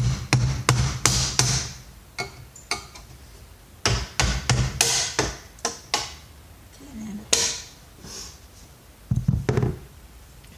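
Hammer blows on a vacuum cleaner's plastic housing, cracking it apart: quick runs of several sharp strikes, with a few single blows between them.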